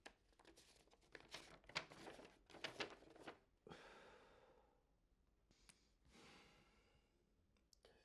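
Faint paper rustling and crinkling as a stack of printed bills is handled, followed by two long sighs.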